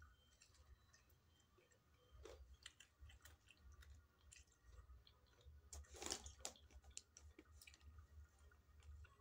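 Faint mouth sounds of someone eating fried chicken: soft chewing with small scattered clicks and smacks, and one brief louder noise about six seconds in.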